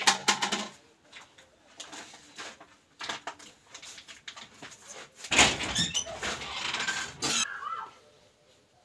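Cloth rustling as dry clothes are handled and folded by hand, with a louder stretch of rustling and flapping about five seconds in.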